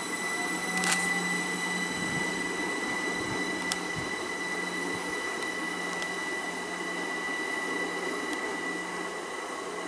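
GWR Class 387 electric multiple unit running at the platform: a steady rush of train noise with steady high electrical whines over a low hum, and one sharp click about a second in.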